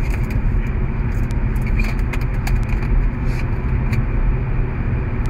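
Steady low rumble of a car, heard from inside the cabin, with light clicks and rustles of a gift box and its contents being handled.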